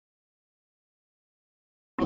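Dead silence: the audio track drops out completely in a recording glitch, with sound cutting back in abruptly right at the end.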